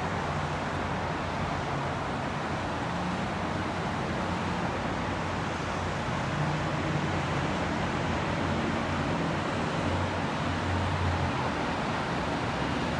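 Steady noise of freeway traffic below, tyres and engines blending into a continuous hum.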